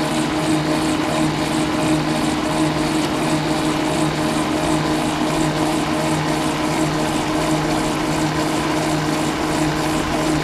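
Pedal-driven wheel and chain drive of a human-powered streamliner spinning fast on a warm-up stand: a steady whirring hum with an even pulsing of about three beats a second.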